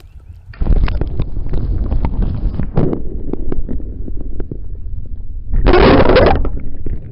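Camera submerged in a creek: muffled rushing of water with knocks against the camera housing as hands hold a small smallmouth bass under the surface. A louder rush of water comes about six seconds in.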